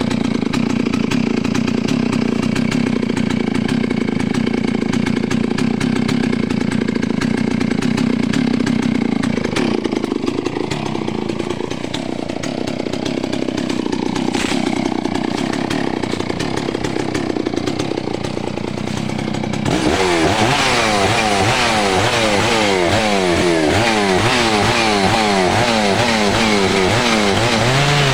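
Stihl MS660 Magnum two-stroke chainsaw cutting into a tree trunk, held at a steady high engine speed at first, then dropping a little and wavering. After an abrupt change about two-thirds of the way through, its revs rise and fall over and over, about one and a half times a second.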